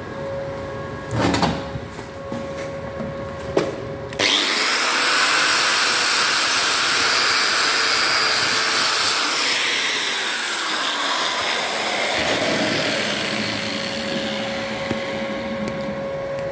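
Handheld angle grinder switched on about four seconds in and running against steel, cleaning up a flux-core plug weld on square steel tubing. Before it starts, a steady hum and a couple of knocks from handling.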